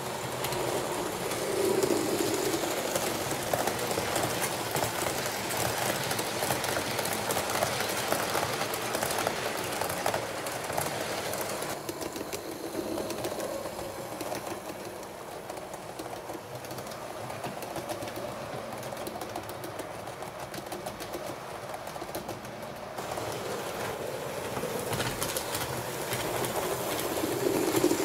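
HO scale model train running on its track: a light electric motor whir with fine clicking of the wheels over rail joints. It grows fainter in the middle and louder again near the end. Brief low hoots are heard about two seconds in and again near the end.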